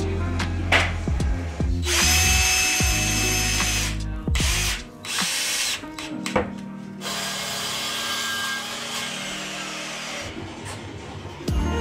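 Power drill running in several bursts, drilling into a white kitchen plinth board, with background music.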